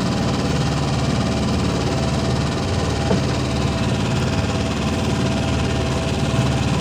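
A small engine on a fishing boat running steadily at idle, with an even rapid beat.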